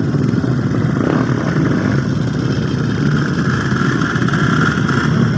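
A convoy of many small motorcycles, underbone mopeds and a dirt bike among them, running at low speed together, their engines blending into one steady mixed engine sound.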